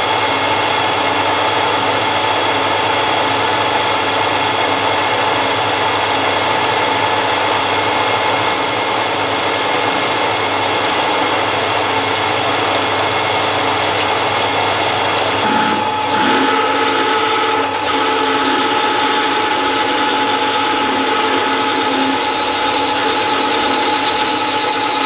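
Warco WM180 mini lathe running with a steady motor and gear whine while a centre drill and then a twist drill in the tailstock chuck cut into a spinning aluminium gear blank. The steady tone shifts to a different pitch about sixteen seconds in.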